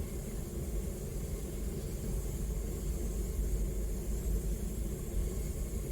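Homemade propane burner firing into a metal-melting furnace, turned partly down: a steady low rumble with a hiss over it.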